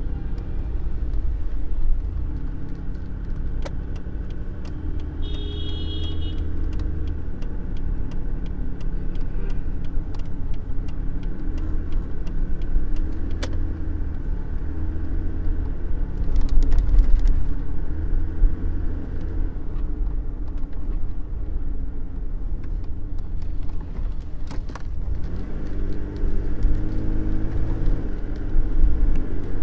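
Inside a moving car: steady engine and road rumble, with the turn-signal indicator ticking evenly, about twice a second, for a stretch of several seconds. A brief high tone sounds about five seconds in.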